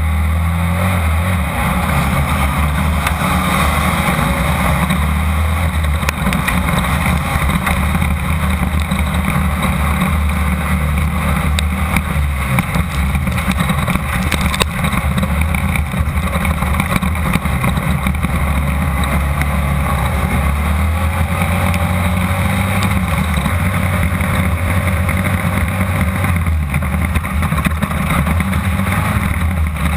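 Engine of a Class 2-1600 off-road race buggy running hard, heard from inside the car as a loud steady drone with a shift in pitch about a second and a half in and again near the end. Scattered knocks and rattles come through from the car running over rough ground.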